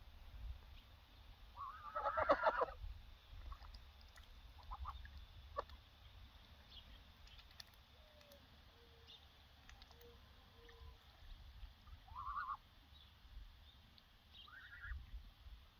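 Young Embden geese, about nine weeks old, calling: a loud burst of honking about two seconds in, then scattered shorter calls, two of them later on rising in pitch.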